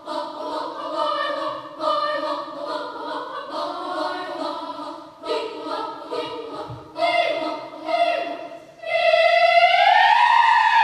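Children's choir singing in several parts, in short phrases. About nine seconds in, the choir slides into one loud held tone that rises and then falls in pitch.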